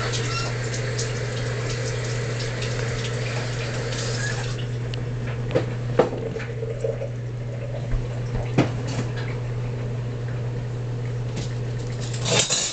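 Kitchen tap running into a sink, a steady rush of water with a few sharp clicks in the middle; the water stops suddenly near the end.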